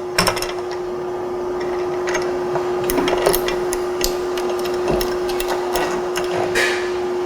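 Scattered light clicks and taps of parts being handled and seated while fitting a ski mount and skewer onto a bicycle fork, over a steady hum at one pitch.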